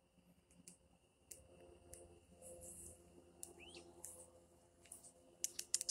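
Faint handling noise: scattered soft clicks and rustles, with a quick run of sharper clicks near the end, over a faint steady high tone.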